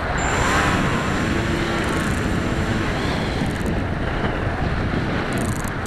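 Wind rushing over the onboard camera microphone of an EPP foam FPV plane in fast, low flight, mixed with the hum of its electric motor and propeller wavering in pitch, and a thin steady high whine.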